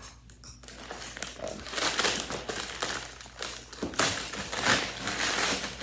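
Packing paper rustling as it is pulled and bunched off a recurve bow, in a run of quick rustles that grow louder about two seconds in.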